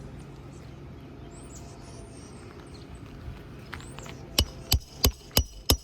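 Hammer blows driving a roofing nail during a shingle repair: five quick, sharp strikes about three a second, starting about four seconds in. Faint bird chirps in the background.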